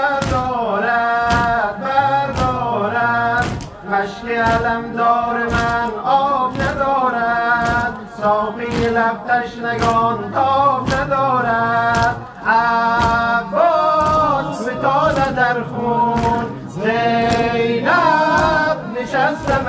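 A crowd of men singing a Persian noha lament together, led at a microphone, with hands striking chests in a steady beat (sineh-zani mourning).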